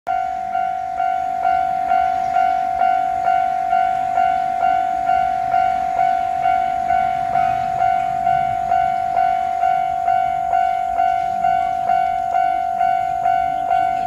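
Japanese railway level-crossing warning bell ringing "kan-kan", a bright ringing tone struck about twice a second, warning that a train is approaching.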